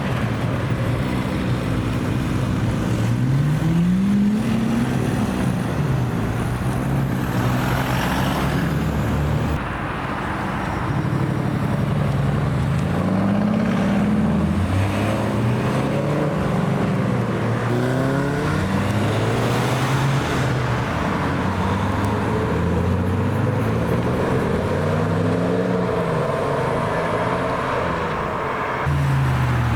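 Car engines accelerating past, their pitch rising in repeated sweeps as the revs climb and drop through the gears, one car after another, with an abrupt change about ten seconds in.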